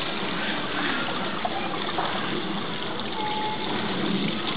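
Small waterfall pouring over rock into a pool: a steady rush of falling water, with splashing and churning where it strikes the surface.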